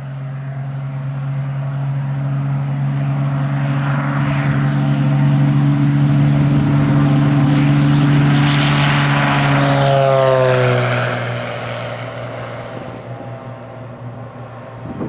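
A 280 hp 1963 Cessna 182's piston engine and propeller at takeoff power, growing louder as the plane rolls down the grass strip and lifts off. Its pitch drops as it passes, about ten seconds in, and then the sound fades as it climbs away.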